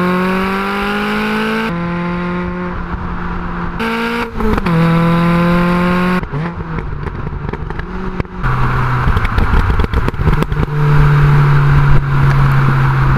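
Car engine recorded through a shotgun mic mounted on the front of the car, revving up as the car accelerates. About four seconds in the pitch drops at a gear change and climbs again. From about eight seconds it settles to a steady drone under a rush of wind on the mic.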